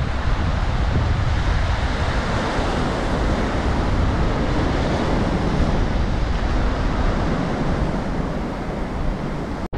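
Surf breaking and washing up a sandy beach, with wind buffeting the microphone as a heavy low rumble. The sound cuts out abruptly for a moment just before the end.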